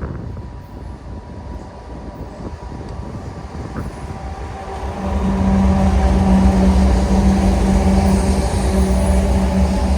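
CSX diesel freight locomotives leading an empty coal train, their engines and rail noise rumbling steadily as they approach, growing much louder with a steady droning hum about halfway through as the lead units come close.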